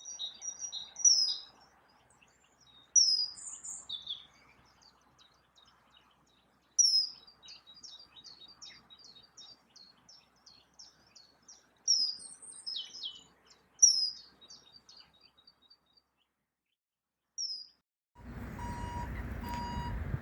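A small bird singing: bursts of high chirps and quick trilled phrases, a few seconds apart. About two seconds before the end, a steady rumbling noise with a regular repeating beep starts.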